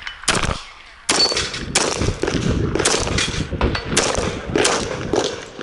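Rapid string of pistol shots from an STI 2011 Edge in .40 S&W, fired at a match pace. Two quick shots come early, then a short lull, then a fast run of shots about two a second from about a second in.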